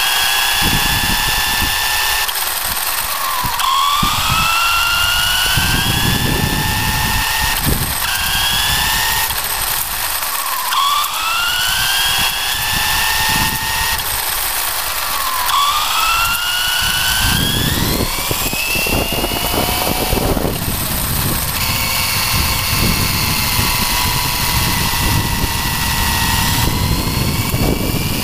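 Traxxas Slash RC truck's electric motor and drivetrain whining as it drives, the pitch dropping and then climbing each time it accelerates, about five times, and held high and steady near the end. Under it, a rumble and knocks from the tyres running over concrete.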